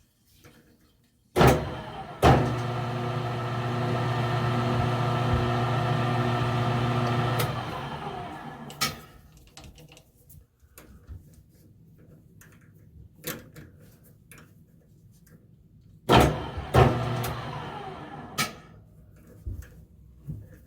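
Lathe motor jogged on at slow speed with a click, running steadily for about five seconds to power-drive a tap into a metal spacer pin, then winding down. A few seconds later a second short jog starts with clicks and fades away.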